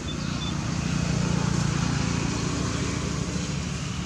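A motor running steadily with a low hum that grows louder about a second in and eases off after about three seconds.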